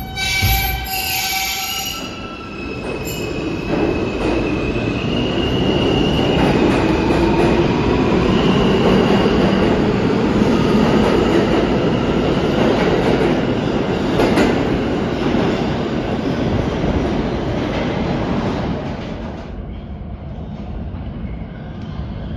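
R160A subway train pulling out of an underground station, its motors' whine rising in pitch as it accelerates over a loud rumble of wheels on rail. Around 19 seconds in the sound fades to the quieter, distant rumble of a train.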